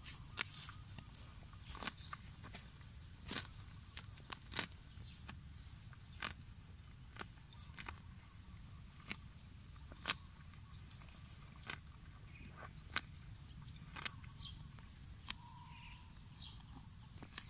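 Zebu cow grazing, tearing off mouthfuls of short grass in sharp crisp rips roughly once a second, irregularly spaced.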